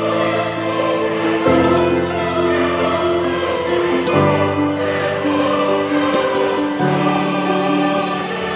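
Background music of slow, held chords that change every second or two.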